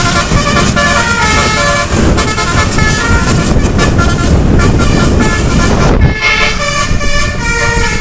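Bus 'telolet' horn playing its multi-note tune, the notes stepping from pitch to pitch, over loud engine and road rumble. The rumble drops away about six seconds in while the horn keeps sounding.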